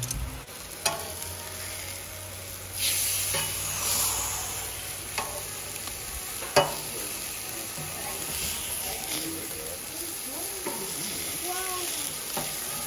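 Fish fillets sizzling on a gas barbecue's flat hotplate as they are flipped with a metal spatula. The sizzle grows louder about three seconds in, and the spatula clinks sharply on the plate a few times.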